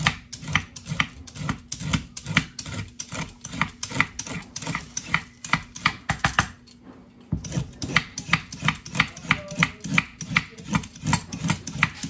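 Vegetable peeler scraping down a raw carrot in quick repeated strokes, about three a second, with a short pause about six seconds in.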